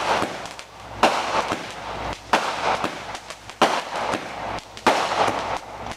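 Fireworks going off in quick succession: four loud bangs a little over a second apart, each trailing off in an echo, with smaller pops and crackling between them.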